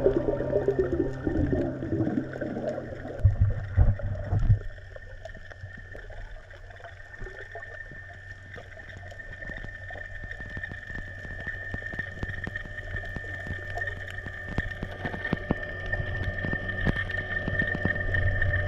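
Underwater sound: water sloshing and bubbling for the first four or five seconds, then a quieter crackle of scattered clicks over a faint steady high tone.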